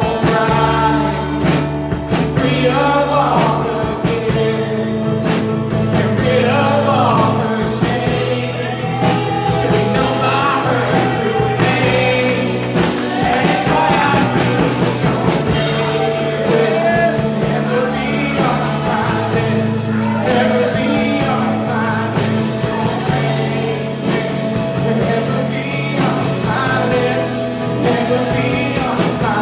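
Congregational worship music: a band with drums, bass and sustained keyboard chords accompanying singers.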